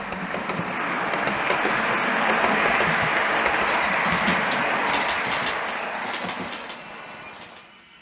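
OO gauge model multiple unit running past on the track: a steady running noise from its wheels and motor, with scattered clicks from the rail joints, growing louder as it approaches, peaking a few seconds in and fading as it passes.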